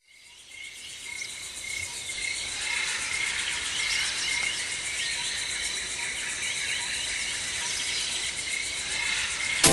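Nature-ambience intro to a deep house track: insects trilling steadily in high, even tones with scattered bird chirps, fading in from silence over the first couple of seconds. The drum beat cuts in at the very end.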